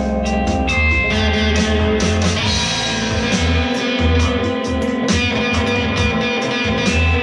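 Music with guitar over a steady pulsing bass, played loud through a row of small speakers.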